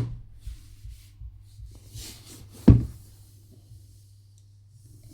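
Two sharp knocks of things being handled and set down on a hard surface, one at the start and a louder one just under three seconds in, with a light rustle between them and a steady low hum underneath.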